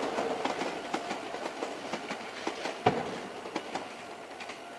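A train running past, its wheels clicking over the rail joints, fading as it moves away, with one sharper knock about three seconds in.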